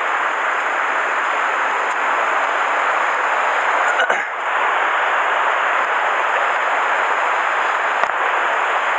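Mountain stream rushing over rocks, a steady even noise, with a single click near the end.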